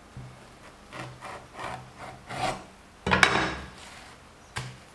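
Kitchen knife sawing through a pan-fried layered flatbread with a lightly crisp crust on a wooden chopping board: a series of short rasping strokes, then a louder knock on the board about three seconds in and a small click near the end.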